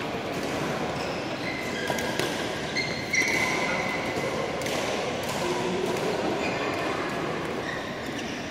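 Badminton rally: a few sharp racket strikes on the shuttlecock at irregular intervals, with short high squeaks of players' shoes on the court mat.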